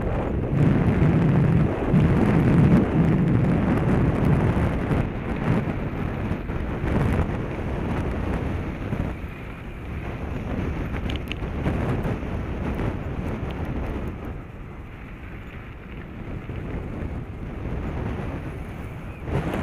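Wind buffeting the microphone of a helmet-mounted action camera while moving along a gravel road, a steady low rumble that is strongest in the first few seconds and eases off after about nine seconds.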